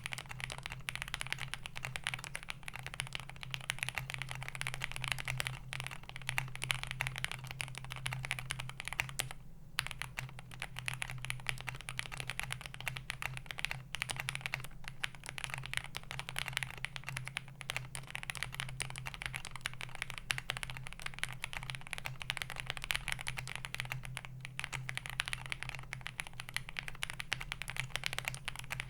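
Fast, continuous typing on a Meletrix Zoom65 mechanical keyboard with lubed JWK linear switches, a polycarbonate plate and doubleshot keycaps, with a brief pause about nine seconds in.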